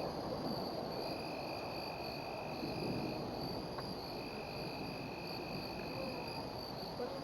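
Insects trilling: one high, steady continuous trill, with a second, lower trill that comes and goes in stretches of two to three seconds.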